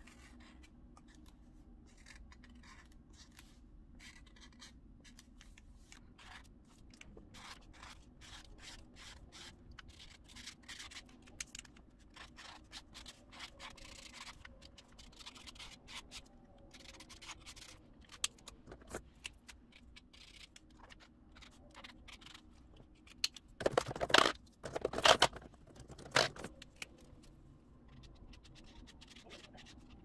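Pen and marker tips scratching and tapping on journal paper in many short strokes, with a louder cluster of scraping and rubbing about three-quarters of the way through.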